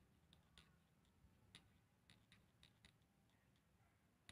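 Near silence broken by about ten faint, irregular clicks from a mini hot glue gun as its trigger is squeezed to feed glue onto a foam petal.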